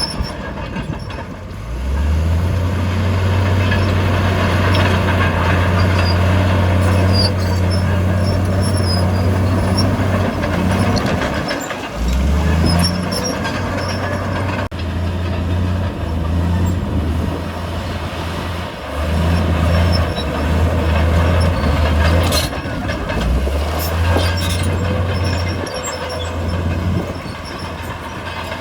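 Komatsu D68E crawler bulldozer's diesel engine working under load, loud and steady, with clanking. The engine note drops away briefly three times, about a second and a half in, near the middle and about three-quarters through, and picks back up each time.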